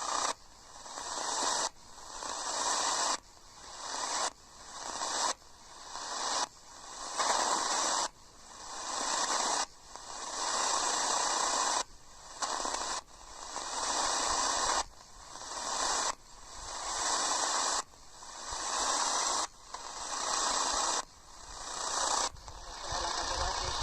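Radio receiver tuned to the medium-wave band, giving out hissing static in repeating swells. Each swell builds up and then cuts off abruptly, about every second and a half.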